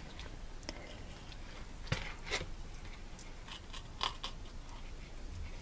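A knife slicing along a whitefish's back down to the backbone. A few faint, scattered clicks and scrapes come as the blade works against the bones.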